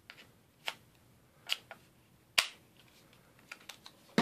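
Handling noise from two small portable vaporizers and their packaging: a few separate light clicks and taps, the sharpest about two and a half seconds in, then a cluster of faint ticks near the end.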